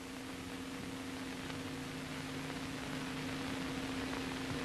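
Steady hiss with a low, constant electrical hum: the background noise of an old film soundtrack.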